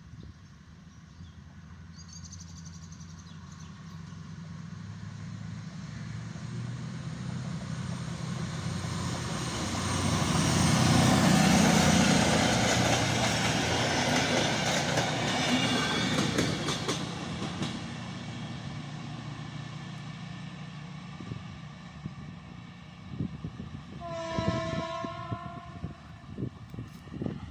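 PKP Intercity passenger train approaching and passing at speed: a rising rumble of wheels on rail that peaks about halfway through, with quick clicks of wheels over rail joints, then fades away. Near the end a train horn sounds once, for about a second.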